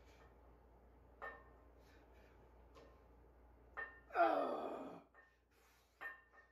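A man's loud gasping exhale about four seconds in, falling in pitch, with a few short sharp sounds around it. It is the strained breathing of someone holding about 200 pounds in each hand at lockout in a farmer's-walk grip hold.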